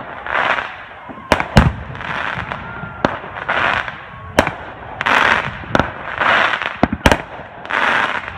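A fireworks display: shells bursting with several sharp bangs, between swells of crackling that come roughly every second and a half from glittering gold bursts.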